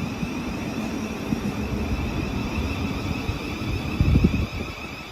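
Electric passenger train running, a steady rumble under a high, steady whine, with a louder low surge about four seconds in.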